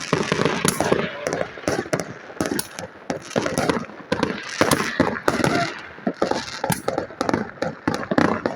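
Fireworks going off: many sharp bangs and crackles in quick, irregular succession.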